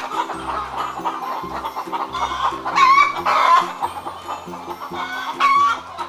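Hen clucking, with its loudest calls around the middle and again near the end, over soft background music.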